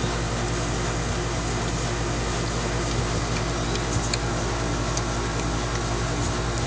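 A steady low machine hum with hiss, and a few faint clicks about four and five seconds in.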